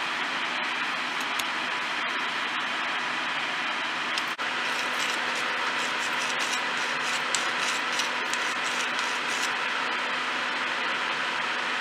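A steady whooshing drone with a faint hum runs throughout. From about five seconds in, a hand file rasps against the edge of a small silver band in a quick run of short strokes.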